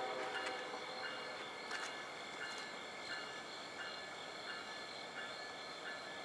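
A bell ringing steadily and faintly, one strike about every 0.7 s with a lingering ring between strikes, from an approaching street-running train or its crossing. At the start, the echo of the train's horn blast is dying away.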